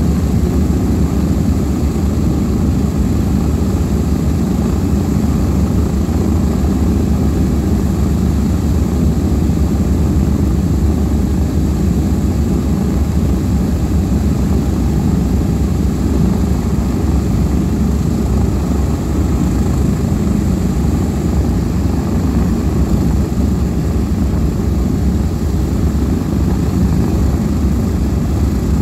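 The four Wright R-3350 turbo-compound radial engines of a Lockheed C-121C Super Constellation running steadily together in a ground run, propellers turning, a loud, deep, unchanging drone.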